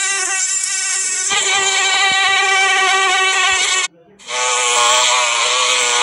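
Recorded mosquito wing whine from an animal-sounds app: a steady, high buzz with many overtones that breaks off a little before four seconds in. After a short gap, a recorded bee's wing buzz starts and holds steady.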